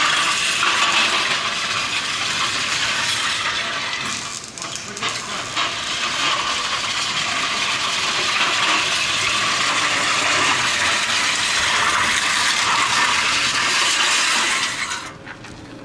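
Weighted steel push sled dragged across concrete, its runners scraping continuously. The scrape dips briefly about four and a half seconds in and stops shortly before the end.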